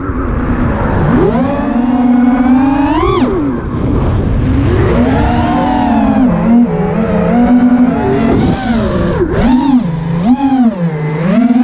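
FPV quadcopter's brushless motors whining over a rushing noise, the pitch swooping up and down again and again as the throttle is worked, with several quick dips and climbs in the second half.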